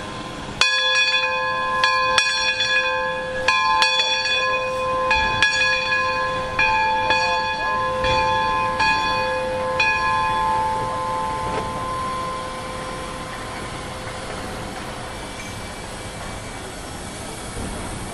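A bell struck repeatedly at an uneven pace, the strikes overlapping and ringing on. The striking stops about ten seconds in and the ringing fades out over the next couple of seconds, leaving a steady low rumble.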